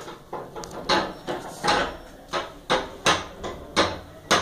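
A run of sharp knocks, about ten of them, two to three a second at uneven spacing, some louder than others.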